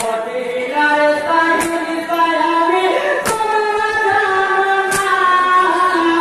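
Men singing a Bengali matam jari, a Muharram lament, in long drawn-out sung notes. Sharp beats cut through about every second and a half.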